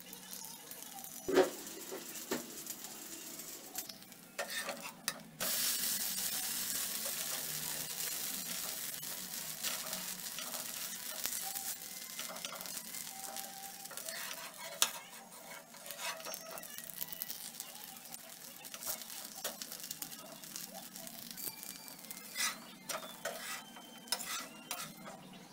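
Oil and dosa batter sizzling on a hot tawa: the sizzle starts suddenly about five seconds in and slowly fades. A steel spatula clicks and scrapes against the griddle now and then.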